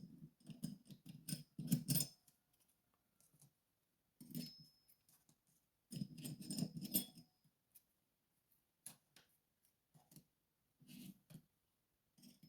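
Small metal lock parts clicking and clinking against tweezers, in short clusters with pauses between. These are the discs and spacers of a disc detainer lock being lifted out in pairs and set down.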